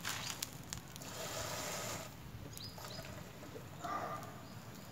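Faint water running from a tap for about a second, filling a plastic cup, with a few light clicks and knocks around it.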